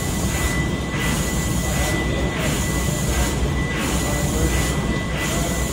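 Steam engine of the paddle steamer Neuchâtel running, cranks and rods turning with a steady low rumble. It pulses regularly about once every second and a half, over a thin steady high whine.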